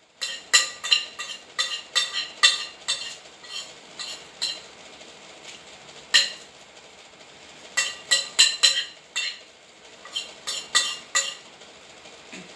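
Repeated sharp clinks and taps of metal on dishes, coming in quick clusters with short pauses between them.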